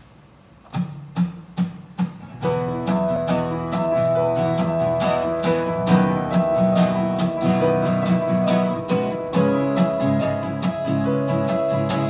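Acoustic guitar strummed with piano accompaniment: the instrumental opening of a song. A few separate strums come first, then steady playing with sustained notes from about two seconds in.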